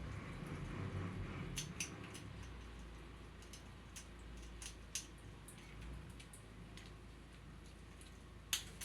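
Irregular light clicks and taps, a few a second and unevenly spaced, with one sharper click near the end and a low rumble in the first two seconds.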